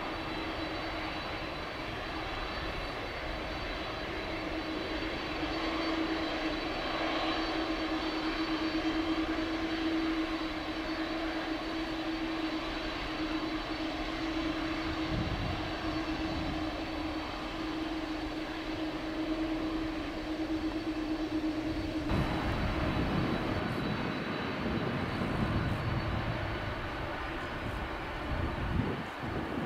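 Boeing 747-400 airliner's jet engines running at taxi power, a steady hum with a constant tone and a faint high whine. About 22 seconds in it switches abruptly to a Boeing 767-300ER taxiing, a lower, broader engine rumble that swells and fades.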